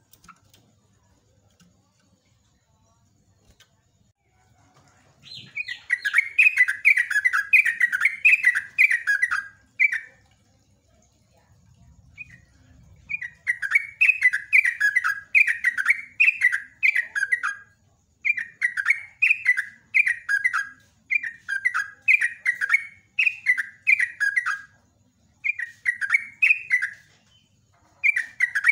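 Yellow-vented bulbul singing. After a few quiet seconds it starts about five seconds in with phrases of quick, repeated notes, each a few seconds long with short breaks between.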